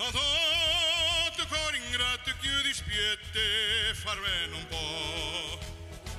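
A male tenor singing operatically, with wide vibrato on long held notes.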